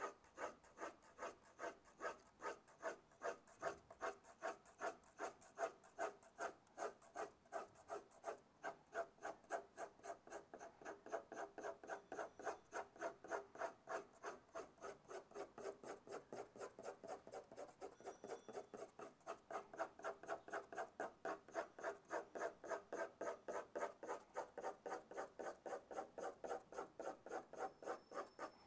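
Graphite pencil hatching on drawing paper: a long run of short, even, scratchy strokes, about three to four a second. The strokes lay dense parallel lines to darken a shaded face.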